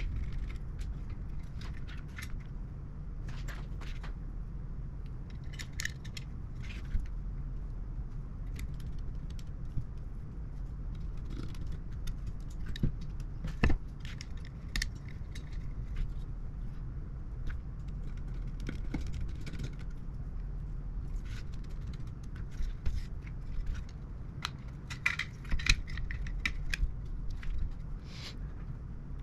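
Hand-work on a graphics card: scattered light clicks, taps and small metallic clinks of parts and tools being handled, over a steady low hum. The densest cluster of clinks comes near the end.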